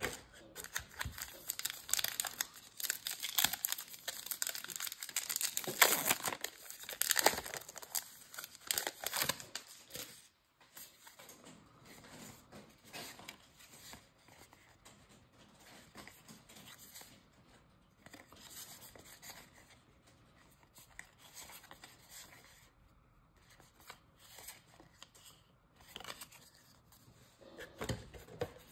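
A baseball card pack's wrapper being torn open and crinkled, loud and busy for about the first ten seconds. Then fainter rustling and handling of the cards, with a louder crinkle near the end.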